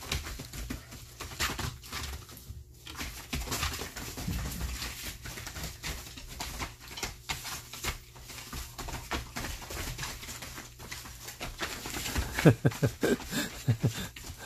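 Jindo dogs play-fighting on a plastic tarp: a steady scuffle of paws scrabbling and crinkling the plastic. A burst of short growls comes near the end and is the loudest part.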